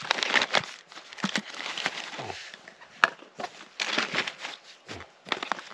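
Small plastic food packets rustling and crinkling as they are handled, in a run of irregular short strokes, with one sharp click about three seconds in.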